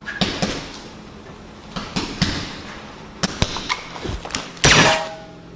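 Punches and arm swings in a fight scene: a series of sharp thumps and quick swishes, some close together in groups of two or three, with one loudest, longer impact near the end.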